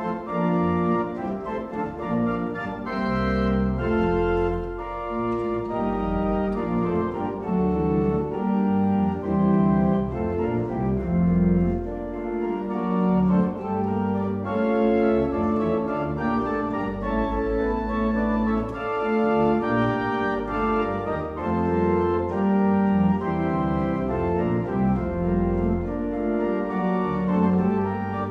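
One-manual Hewitt pipe organ playing a piece in held chords that change every second or so, with deep bass notes played on the pedals.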